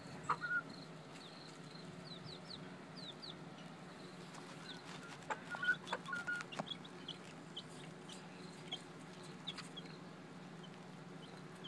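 Young chicken giving short, scattered peeps and soft clucks, which come thickest around the middle. A steady low hum runs underneath, and a few sharp ticks come in between the calls.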